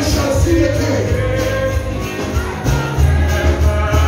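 Live gospel praise song: voices singing over a band with a prominent bass line and a steady beat.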